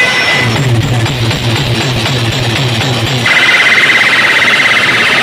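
Competition sound system playing an electronic effect track very loudly. First comes a throbbing bass pulse, about four or five beats a second. About three seconds in, it cuts over suddenly to a high, fast-warbling siren-like tone.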